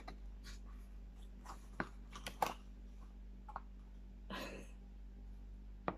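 Small paperboard product box being opened and handled: a few light clicks and taps of the cardboard flap and the plastic jar, with a short papery scrape a little past four seconds.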